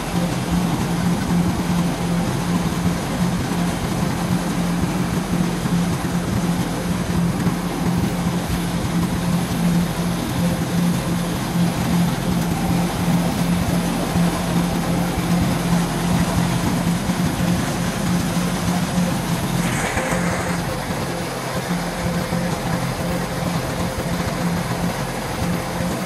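Kubota DC-105 rice combine harvester running steadily under load, with a constant engine and machinery drone. A brief hiss comes about twenty seconds in.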